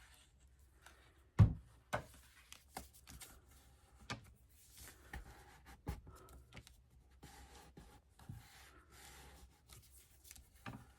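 Paper being handled and pressed by hand: light rustling and rubbing, a soft thump about one and a half seconds in and a few scattered taps.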